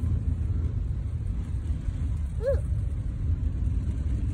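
Car cabin noise while driving: a steady low road and engine rumble. A single brief pitched sound that rises and falls comes about two and a half seconds in.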